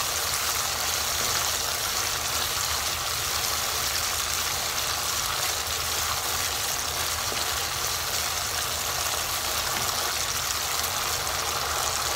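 Spice paste sizzling and bubbling in hot oil in a frying pan as it is sautéed and stirred with a spatula: a steady hiss with a low hum underneath.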